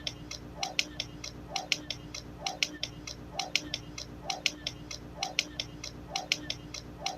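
Steady, even ticking like a clock, several sharp ticks a second with a softer knock just under once a second, over a low steady hum.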